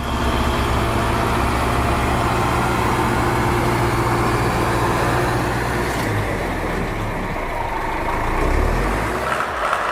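Heavy machine's engine running steadily under load, its sound changing abruptly about six seconds in.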